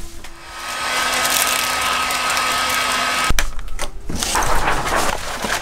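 Electric heat gun switched on and running, its fan blowing with a thin steady whine for about three seconds before it stops abruptly; then crinkling of plastic wrap being handled.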